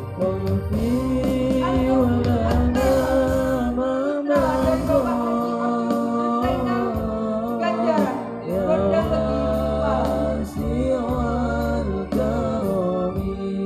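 A young man singing a wavering, ornamented melody over sustained electronic keyboard accompaniment.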